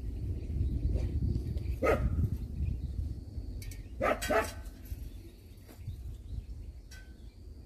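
A dog barking: one bark about two seconds in, then two quick barks around four seconds.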